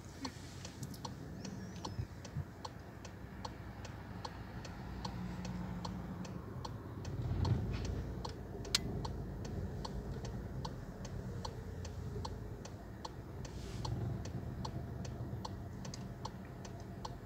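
A car's turn-signal indicator ticking in a steady, even tick-tock over the low hum of the engine idling, with one sharper click about nine seconds in.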